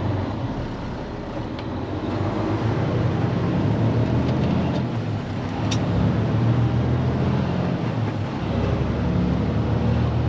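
Diesel engine of a day-cab semi truck pulling under load, heard from inside the cab. The engine note climbs over the first few seconds and changes about eight seconds in, as at a gear change, with a couple of brief clicks.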